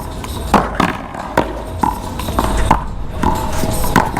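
A paddleball rally: several sharp knocks, irregularly spaced, as paddles hit the ball and the ball strikes the wall.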